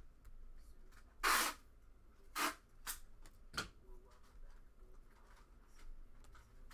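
A stack of glossy Panini Prizm trading cards being slid off one by one from hand to hand: four short swishes, the loudest about a second in, with faint ticks of card edges between.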